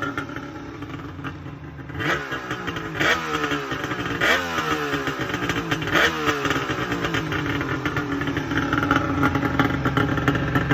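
Suzuki GT550's two-stroke triple engine, breathing through a modified collector-chamber exhaust silencer, revved in four quick throttle blips with the pitch falling away after each. It then settles to a steady running note.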